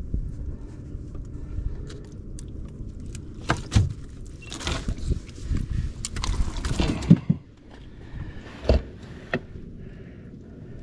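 Knocks, rattles and rustling as a landing net and a freshly netted snook are handled aboard a small boat, over a low steady rumble. There are two sharp knocks near 4 s, a few seconds of rustling hiss in the middle, and a couple more knocks near the end.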